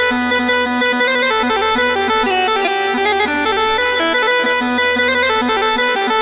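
Background music: a quick melody of changing notes over a steady held drone.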